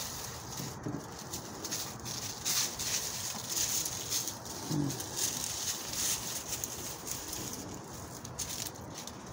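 Dry fallen leaves rustling and crackling in short, irregular bursts as hens scratch and step through the leaf litter, with a brief low call about five seconds in.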